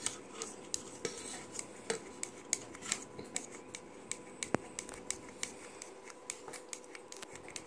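Wooden stirring stick scraping white slime glue out of a small plastic measuring cup into a plastic bowl: a run of irregular light clicks and scrapes.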